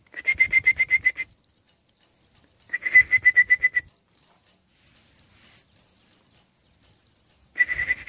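Kedasih cuckoo chick giving begging calls while being hand-fed. There are three bursts of rapid, evenly pulsed high chirps, about nine a second and each about a second long: one at the start, one around three seconds in, and one near the end.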